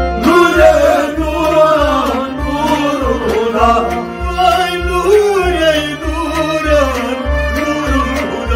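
Kashmiri Sufi devotional song: a man singing over a harmonium drone and a plucked string instrument, with a deep, steady drum beat.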